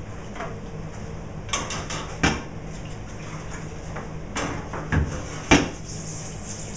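A scrub brush knocking and clattering against the bucket several times as it is dipped in the screen wash, then stiff bristles start scrubbing across the screen-printing mesh near the end. A steady low hum runs underneath.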